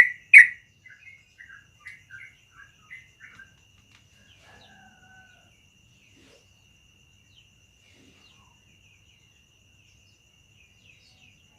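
Yellow-vented bulbul (trucukan) singing: two loud notes at the start, then a quick run of softer bubbling notes for about three seconds and a brief whistled phrase, after which the bird falls mostly silent. A faint steady high tone runs underneath.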